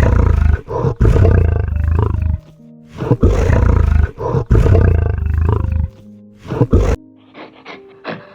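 A big cat roaring and growling in long, deep, pulsing runs over background music. At about seven seconds it cuts to a quieter series of short rasping calls.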